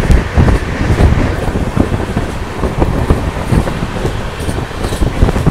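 Running noise of an Indian Railways sleeper-class coach in motion, heard at the open coach door: the wheels rumble and clatter on the track, with wind buffeting the microphone.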